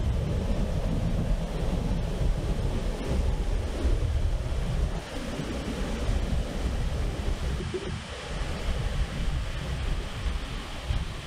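Wind buffeting the microphone over a steady rush of water. The gusts ease about five seconds in.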